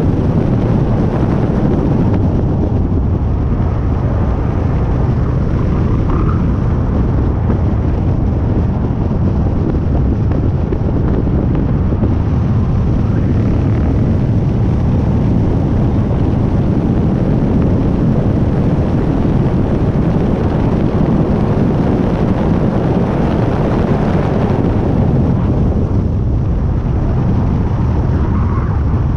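Steady wind roar buffeting a microphone mounted on the outside of a Hyundai i30 N at the front wheel, mixed with tyre and road noise as the car drives at speed on a race track.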